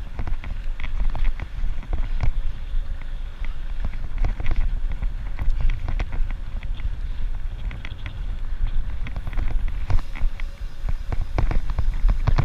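Wind buffeting the microphone with a steady low rumble, over frequent clicks and rattles of a bicycle riding over a rough dirt road.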